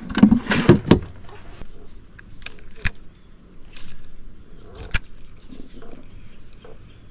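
A crappie dropped into a plastic cooler and the lid shut: a quick run of knocks and rattles in the first second. Then a few sharp clicks and knocks as a spinning rod and reel are handled, the sharpest about five seconds in.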